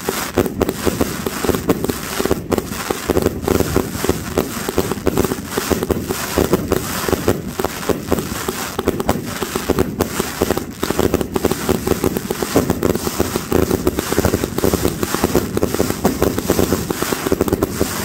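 A 200-shot consumer firework cake firing without a pause: launches and bursts follow one another several times a second.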